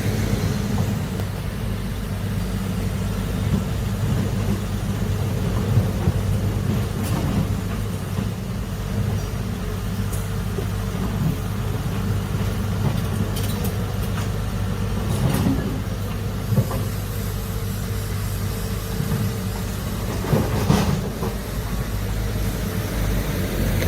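Heavy earthmoving machine's diesel engine running steadily under load, with a few sharp metallic knocks now and then.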